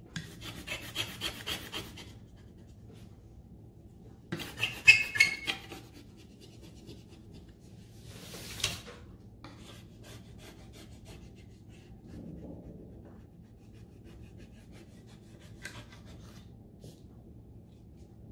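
A rub-on transfer being burnished onto an MDF picture frame with a hand tool: bursts of quick, scratchy rubbing strokes, loudest about five seconds in, then a single swish and fainter scratching.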